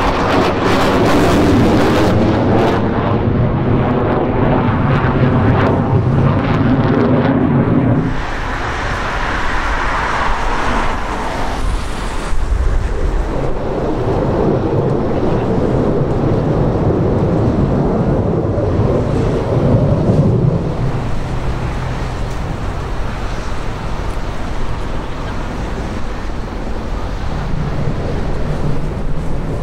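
Engine noise from F-15 Eagle fighter jets manoeuvring overhead, loud and wavering in pitch as they pass. It drops about eight seconds in, then swells again before easing off.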